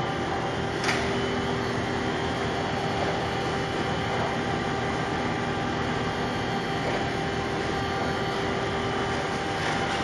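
Veneer peeling machinery running steadily with a constant hum, with a sharp click about a second in and a fainter one near the end.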